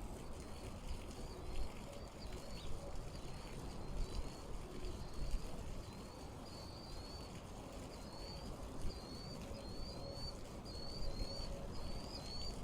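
A bird calling over and over in short, quick chirps, roughly one a second, over a steady low outdoor rumble.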